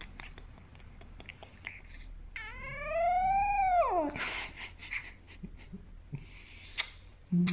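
Shiba Inu puppy giving a squeaky, whining yawn: one drawn-out call that rises and then falls away over less than two seconds, ending in a breathy exhale. Small wet licking clicks come before and after it.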